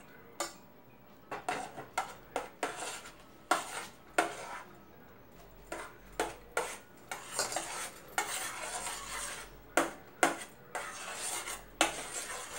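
Metal spoon scraping and clinking against the inside of a stainless steel saucepan in irregular strokes as softened butter is stirred and broken up.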